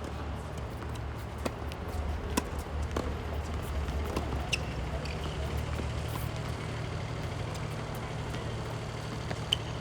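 Steady low rumble of city traffic, with a few short, sharp taps of tennis balls scattered through it.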